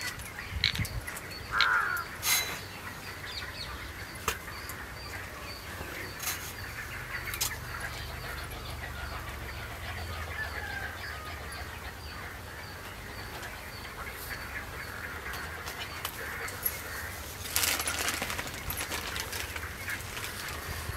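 Birds calling in the background, with short chirps and calls scattered through; a brief paper rustle near the end as butter paper is peeled off the flattened dough.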